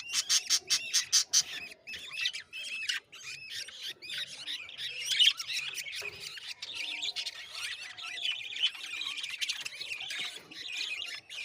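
Budgerigars chirping and chattering: a quick run of sharp, evenly repeated chirps in the first second and a half, then busy continuous chatter.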